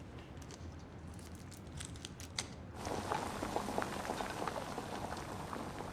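Food cooking in a pot or pan: a dense crackling sizzle that starts suddenly about three seconds in, after a few light clicks.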